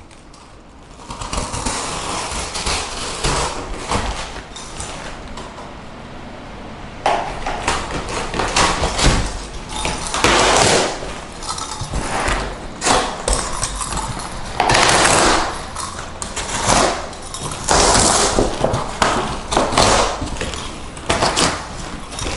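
A knife cutting down the sides of a corrugated cardboard box: a series of scraping, ripping strokes about a second each, coming closer together from about a third of the way in.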